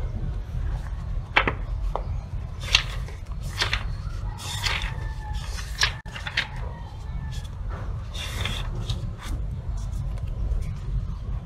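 Paperback book being handled by hand: light taps and knocks on the cover and several papery swishes as it is opened and its pages are turned and leafed through.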